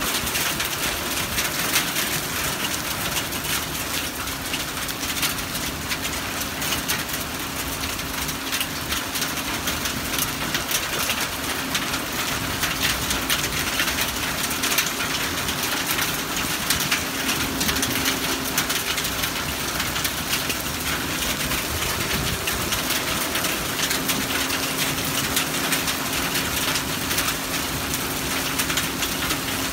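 Small hail mixed with rain falling on wet concrete and grass: a dense, steady patter of countless tiny ticks over a hiss.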